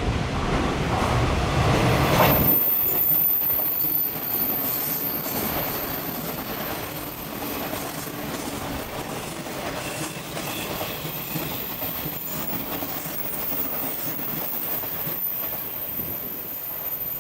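Electric or freight train passing on the line, its wheels clicking over the rail joints, with some wheel squeal. A loud rushing noise, strongest low down, fills the first two seconds and stops abruptly.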